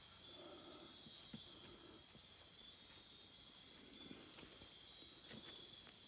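Night-time rainforest insect chorus: a steady, high-pitched shrill of many insects, with a few faint taps.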